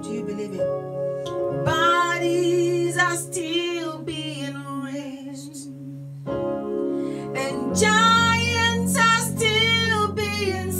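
A woman singing a gospel worship song with vibrato on long held notes over sustained keyboard chords, in two sung phrases with a stretch of keyboard alone between them.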